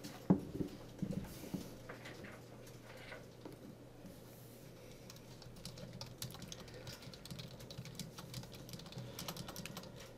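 Typing on a computer keyboard: a few separate key clicks at first, then a quicker run of typing through the second half.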